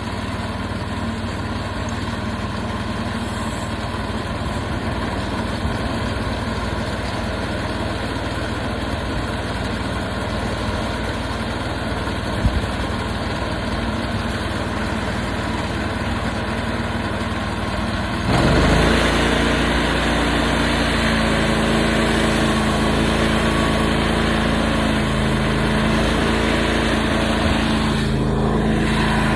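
Portable sawmill engine running steadily. About two-thirds of the way through it gets louder and its pitch changes as it picks up, with one sharp knock a few seconds before.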